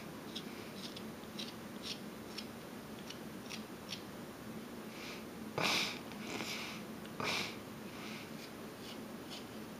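Small whittling knife shaving thin chips off a wooden cat carving: a string of short, light scraping cuts, with two louder, longer rushes of noise about six and seven seconds in.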